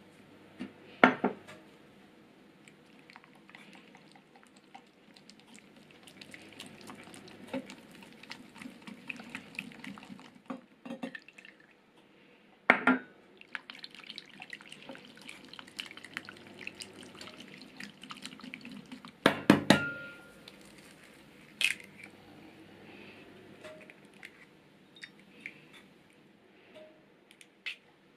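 Milk pouring into melted chocolate in a glass bowl, then a whisk stirring the batter around the glass bowl, with a few sharp knocks of utensils against the glass.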